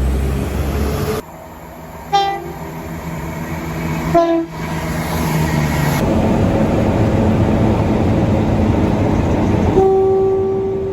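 Train horns sounding over the rumble of passing trains, in a string of short clips cut together. There are two brief blasts about two and four seconds in, and a longer steady horn near the end.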